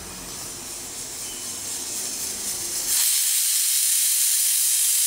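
Aluminium pressure cooker on a gas burner, its hiss growing louder. About three seconds in, the weighted whistle valve lifts and lets off a sudden loud, steady jet of hissing steam: the cooker's whistle, the sign that it has reached full pressure.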